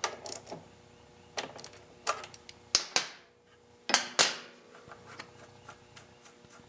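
Sharp metal clicks and clinks of a wrench on the rocker-arm jam nut of a Kohler Courage XT engine's valve train, a few with a short ring, as the nut is loosened. In the last couple of seconds there are only faint light ticks as the nut is spun off by hand.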